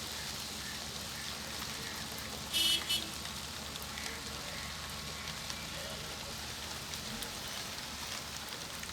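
Steady rain falling, with scattered drop ticks. About two and a half seconds in, a brief shrill high-pitched sound cuts through twice in quick succession and is the loudest thing heard.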